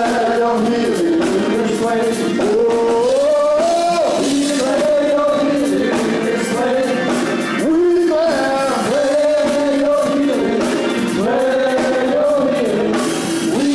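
Gospel worship music: singing voices holding and gliding through long sung notes over band accompaniment.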